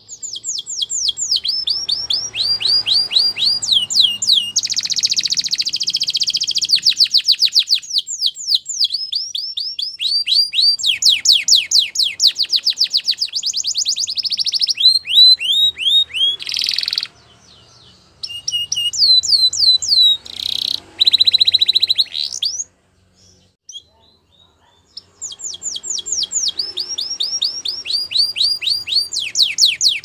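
Canary singing: rapid trills of repeated down-slurred notes, one phrase running into the next at a changing tempo. The song breaks off briefly past the middle and again for about two seconds later on.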